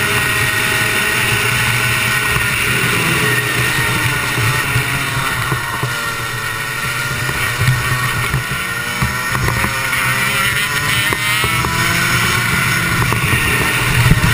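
Rotax two-stroke kart engine running hard, heard onboard. Its pitch drops around the middle as the kart slows for a corner, then climbs again as it accelerates away.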